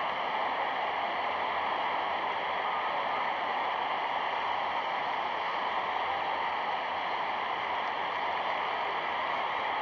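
A steady, even rushing noise, unchanging throughout, with no distinct events in it.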